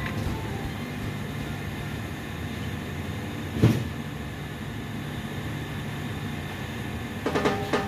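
Supermarket background noise: a steady low rumble and hum, with a single short knock a little before halfway.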